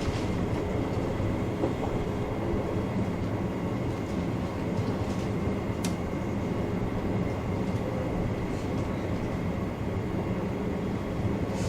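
Chichibu Railway electric train running along the line, heard from behind the driver's cab: a steady low rumble of the running gear with a faint steady high hum. A single sharp click sounds about six seconds in.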